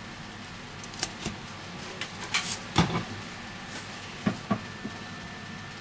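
Handling noise from a Xiaomi Redmi Note 5A's display module and plastic frame turned over in the hands: a scatter of light clicks and knocks, a brief scrape near the middle, and two sharp clicks close together later on.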